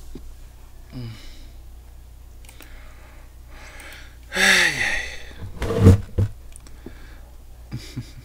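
A person's voice: short wordless vocal sounds and breaths, with a longer sound falling in pitch about four and a half seconds in and a short louder one about a second later.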